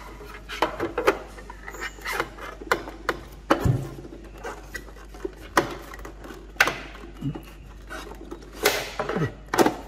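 Plastic drip tray and used-capsule container of a Nespresso Lattissima Touch coffee machine being handled and pushed back into place: a series of irregular plastic clicks, knocks and rubs.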